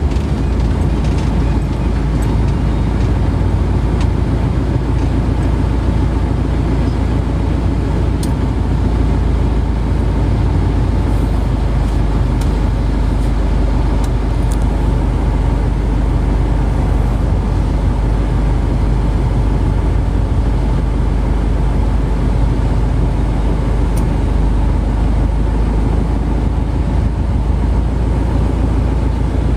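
Steady, loud low rumble with a noisy hiss above it, of the kind heard from a moving road vehicle, with a few faint ticks.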